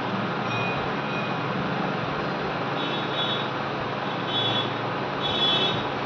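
Hot air gun blowing steadily, a constant even noise, as it heats the gum coating on a washing-machine circuit board to soften it. Several brief high-pitched tones sound over it, most in the second half.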